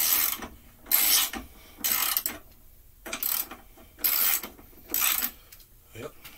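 Socket ratchet wrench clicking in six short bursts, about one a second, as the handle is swung back and forth to back out a stubborn bolt on a push-mower deck.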